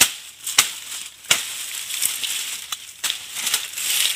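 A blade chopping into the base of a thorny wild date palm clump: sharp chops about every two-thirds of a second, then a dry crackling rustle of fronds and leaf litter in the last second.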